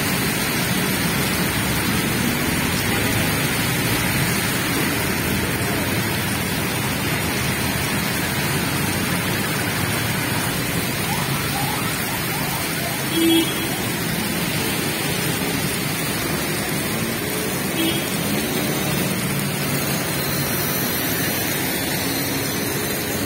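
Heavy rain falling steadily on the road and pavement, with traffic running through it. Two short beeps: a louder one about 13 seconds in and a fainter one near 18 seconds.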